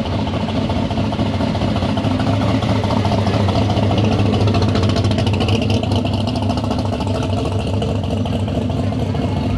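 A car engine running steadily at idle, a low hum that holds throughout.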